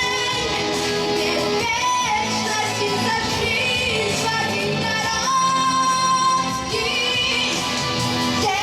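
A boy's unbroken high voice singing a pop song with long held notes over a backing track.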